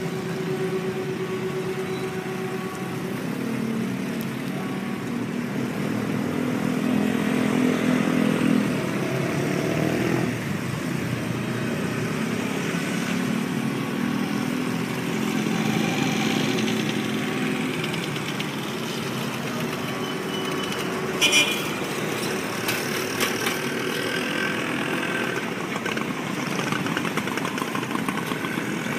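Road traffic of cars and motorcycles running and passing, with engine hum rising and falling as vehicles move off and go by. A brief sharp sound stands out about two-thirds of the way through.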